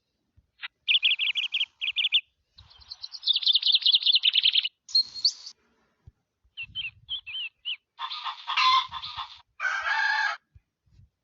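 A string of short animal sound-effect clips played one after another with brief silent gaps, mostly bird calls: repeated chirps, a fast trill and a rising whistle, then two longer, harsher calls near the end.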